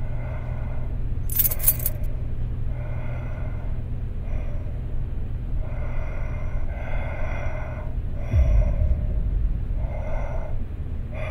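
A run of slow, breathy gasps, about six drawn breaths, over a low steady drone. A short sharp noise comes about a second and a half in, and a deep low swell about eight seconds in.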